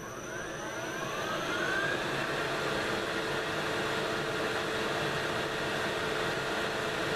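Metal lathe spinning up and running: a whine rises in pitch over the first two seconds, then the motor and spindle run steadily.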